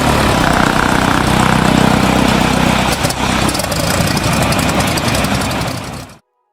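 Aircraft engine running loudly and steadily, cutting off abruptly near the end.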